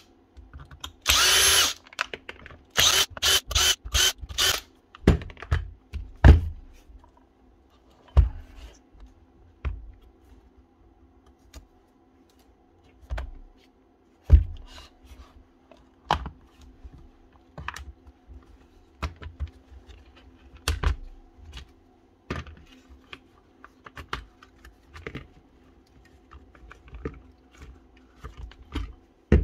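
A power driver backing out the tool's housing screws: one run of the motor about a second in, then a quick string of short trigger bursts, followed by scattered clicks and knocks of screws and casing parts being handled over a faint steady hum.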